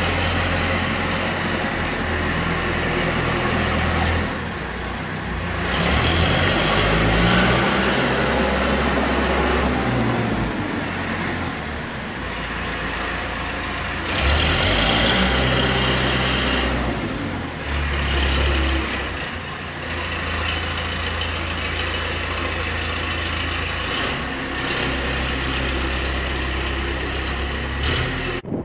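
A loader's engine running under load, the revs rising and falling as it works, with louder spells about six and fifteen seconds in.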